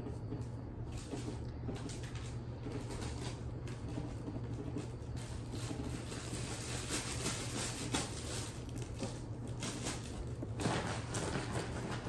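Light, irregular rustling and small clicks of candy wrappers and plastic bags being handled, over a steady low hum.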